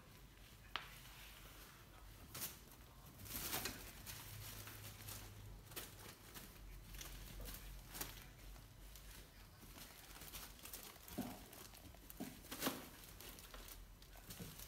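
Kittens playing in a fabric play tunnel: faint, scattered rustles and crinkles with a few light knocks, the loudest near the end.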